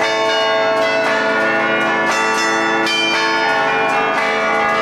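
A tower's twelve church bells played from a hand keyboard (tastiera) in the Lombard allegrezza style. A quick succession of clapper strikes plays a melody, each bell's tone ringing on under the next.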